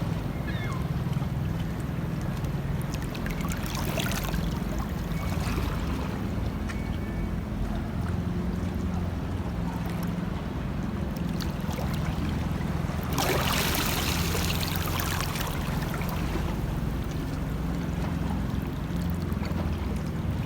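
Sea water lapping and splashing over a steady low rumble, with a louder wash of water about four seconds in and a longer one from about thirteen to fifteen seconds.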